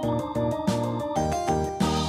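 Background music: a bright tune with notes changing in a quick, steady rhythm.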